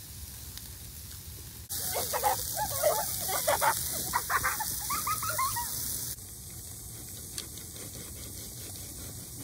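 Sausages sizzling on a charcoal grill, a steady hiss that starts about two seconds in and stops about six seconds in, with short chirping calls over it. Before and after that there is only a faint steady background.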